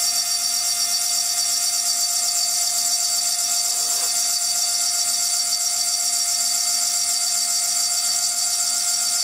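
High-speed CNC milling spindle, spun at around 40,000 rpm, running at a constant speed with a steady whine and a high hiss as its freshly sharpened cutter engraves the glass of a beer bottle.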